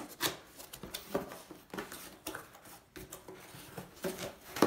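Cardboard box being opened by hand: a string of short scrapes, taps and rustles as the lid flaps are pulled open.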